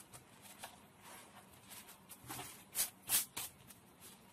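Thin lavash flatbread rustling and crinkling as hands roll the stack tightly, with a few louder rustles about three seconds in.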